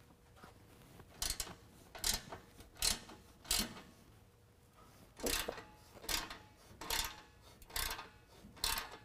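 A 13 mm wrench loosening the nuts on an exhaust flange: short metallic clicks on each back-swing of the wrench, about one stroke a second. Four strokes, a pause of about a second, then five more.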